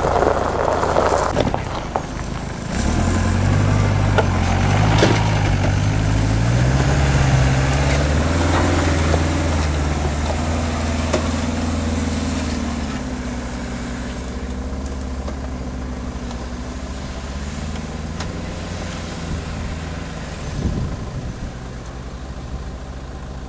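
An off-road 4x4's engine pulling under load, its pitch rising and falling as it revs, then growing steadier and fainter. A single short knock near the end.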